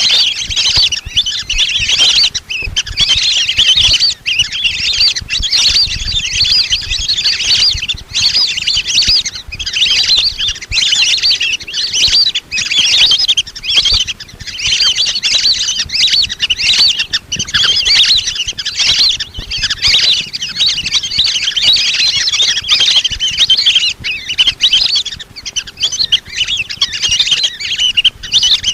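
Lesser whistling ducks calling nonstop: a dense chorus of thin, chattering whistles, a recorded lure call for drawing in these ducks.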